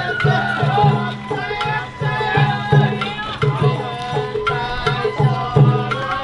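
Sawara-bayashi float music: taiko drums beating a steady, repeating rhythm with a wavering high melody line above, typical of the bamboo shinobue flute of festival hayashi.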